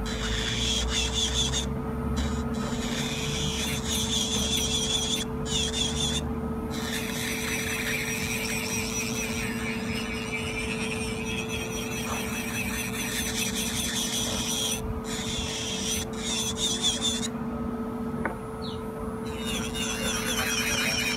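Rechargeable electric nail drill (e-file) running at a steady pitch while its bit files a nail, with a higher grinding sound that comes and goes as the bit touches the nail and lifts off several times.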